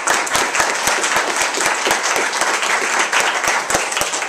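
A seated audience applauding, a dense, steady run of many hands clapping.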